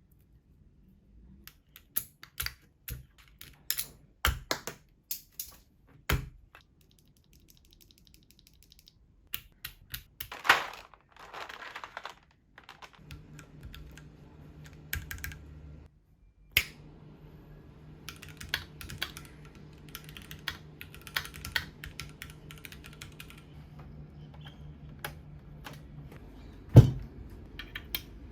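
Keychron Q5 mechanical keyboard being unboxed and handled: scattered clicks, taps and key presses, a rustling swell about ten seconds in, and a loud knock near the end as something is set down.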